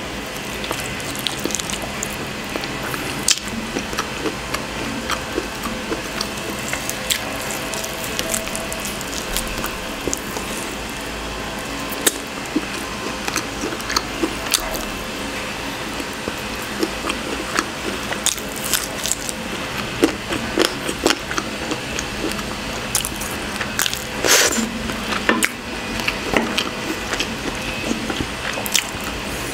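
Close-up eating sounds: wet chewing, lip smacks and finger-sucking while eating grilled chicken with the hands, with many short, sharp clicks and smacks throughout.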